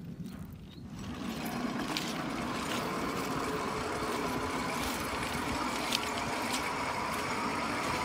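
Hand-pushed manual track-measuring trolley rolling along the rails from about a second in: a steady rolling noise with a faint metallic ring, and a few sharp clicks.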